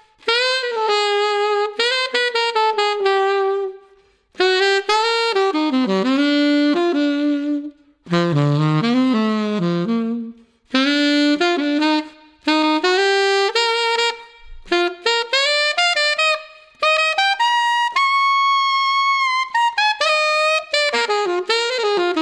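Yanagisawa WO33 alto saxophone with a KZ brass neck, played unaccompanied: melodic phrases with short breaks for breath. It dips into the low register about eight seconds in and holds one long high note near eighteen seconds.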